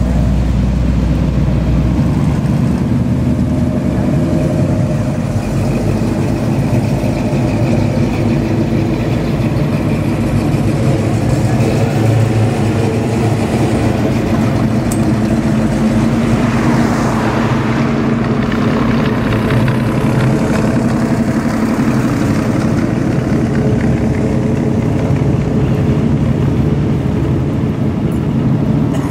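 Classic American muscle cars and other vintage cars driving past one after another, a steady mix of engine and tyre noise. One car passes louder and closer from about sixteen to twenty seconds in.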